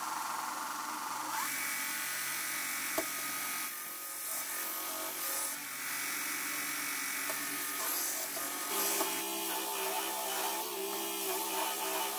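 Small bench belt grinder's motor and abrasive belt running steadily, starting up suddenly at the outset. About nine seconds in the tone changes and lower hum-like tones join in as a steel knife blank is pressed against the belt on the platen for grinding.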